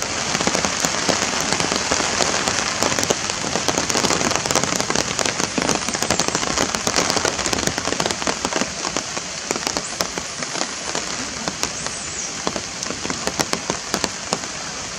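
Steady rain pattering: a dense hiss packed with small drop ticks, starting suddenly and running on evenly.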